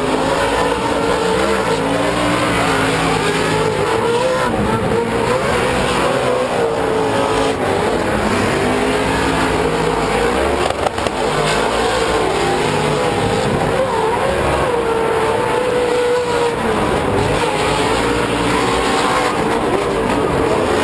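Several Pro2 short-course off-road race trucks with V8 engines running hard round a dirt track, their engine notes overlapping and rising and falling as they accelerate and back off.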